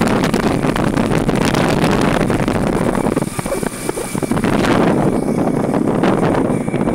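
Wind buffeting the microphone of a moving vehicle, over the steady noise of the vehicle's engine and tyres on the road. The rush eases briefly about three to four seconds in.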